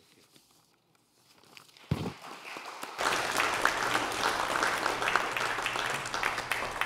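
A single thump about two seconds in, then the congregation applauding from about three seconds in: dense, steady clapping.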